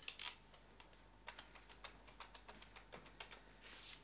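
Faint, irregular small clicks of a wall telephone being dialled, with a brief rustle near the end.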